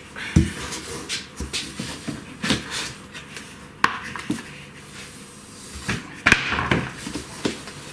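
Irregular knocks, clicks and rustling of packing being handled and pulled about as a box is unpacked, with a few sharper knocks among them.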